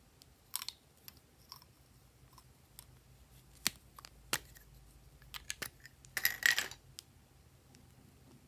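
Small plastic clicks and taps from two ice-cream-cone-shaped lip balm tubes as their caps are worked off, with scattered single clicks and a quick rattling cluster of clicks a little past six seconds in.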